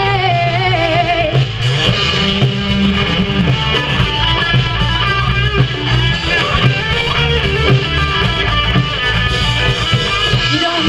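Live rock band playing an instrumental passage between vocal lines: electric guitar over bass and drums, with a wavering held note near the start.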